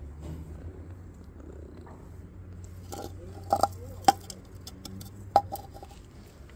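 Stray cat purring, a steady low rumble while being stroked. Over it, a plastic food bowl knocks sharply against paving stones three times as it is set down, about three and a half, four and five and a half seconds in.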